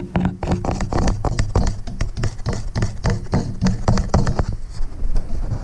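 Rubber mallet tapping rapidly, about four times a second, on a pencil held against the old rear main seal of a Jeep 4.0 inline-six, pushing the seal out of its bore. The taps slow to a few spaced ones near the end.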